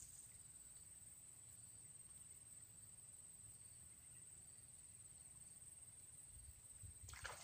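Near silence, with a faint, steady, high-pitched drone of insects throughout.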